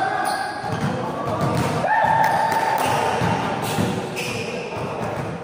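Music with long held notes, over basketball bounces and thuds on a hardwood court.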